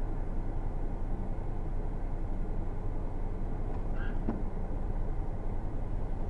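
Steady low rumble of a stationary car's engine and the surrounding street traffic as picked up by a dashcam. About four seconds in there is a brief faint high tone and a single click.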